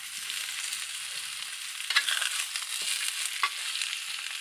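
Cubed tempe with sliced shallots and garlic sizzling in oil in a wok, stirred with a metal spatula. A steady frying hiss, with a couple of sharper scrapes of the spatula against the pan, the loudest about halfway in.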